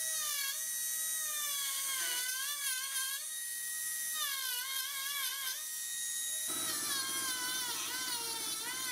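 Small high-speed rotary tool with a burr whining as it grinds lab metal filler out of a patch in cast aluminium. Its pitch dips and recovers over and over as the burr bites under load.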